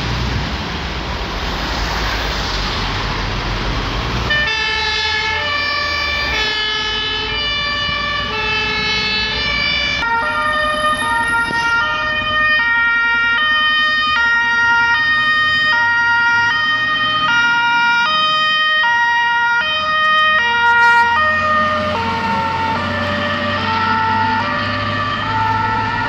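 Heavy road and engine noise at first. From about four seconds in comes the two-tone siren of German fire engines, alternating between a high and a low note about every two-thirds of a second. From about ten seconds in a second two-tone siren overlaps it, so the notes interleave.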